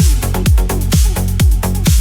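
Electronic dance music with a steady four-on-the-floor kick drum, about two and a half beats a second, and off-beat hi-hats.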